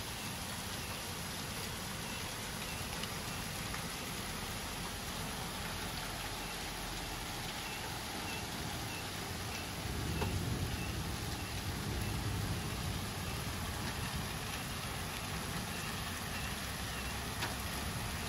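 Hail and heavy rain falling and pattering on flat garage roofs and wet pavement, a dense steady hiss. About ten seconds in, a low rumble joins it and holds on.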